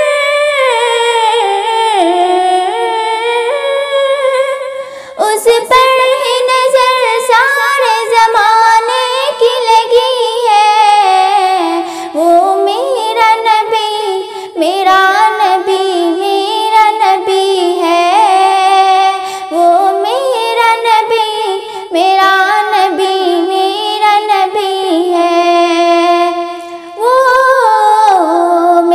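A girl singing a naat, an Urdu devotional poem, solo and without instruments. Her voice holds and winds through long drawn-out notes, with short breaks for breath.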